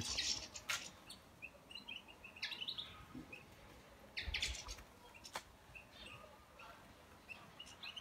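Small birds chirping faintly in short, scattered high notes, in a few brief clusters; the busiest cluster comes about four seconds in. There are a couple of sharp clicks in between.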